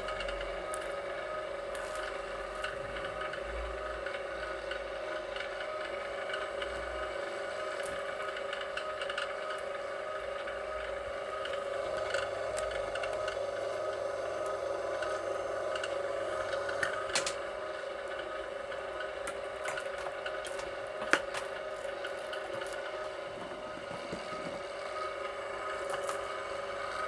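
VEVOR electric wire-stripping machine running with a steady motor hum, with scattered clicks and scrapes over it and one sharper click about two-thirds of the way through.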